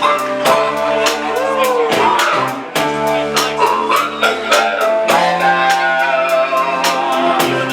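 Live rock band playing a song: guitar over bass and drums, with a steady beat and some bending, gliding notes.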